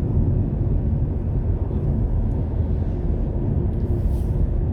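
Steady low road and engine rumble inside a moving car's cabin, with a brief hiss about four seconds in.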